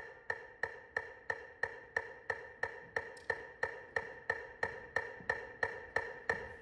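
Metronome clicking steadily at about three beats a second, each click short and sharp.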